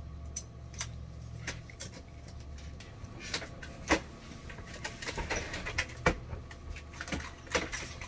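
Plastic drug boxes and their latches being handled inside an ambulance cabinet: a string of sharp clicks and knocks with rustling in between, over a low hum that stops about three seconds in.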